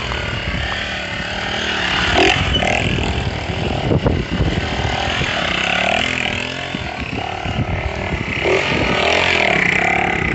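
Small motorcycle engine revving up and down repeatedly as the bike is held up on its rear wheel in wheelies.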